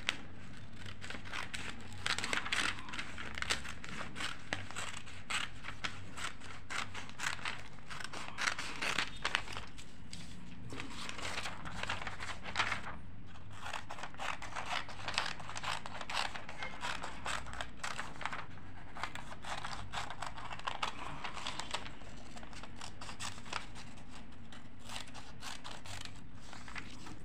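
Scissors cutting out a paper sewing pattern: a long run of snips with paper rustling, broken by a couple of brief pauses.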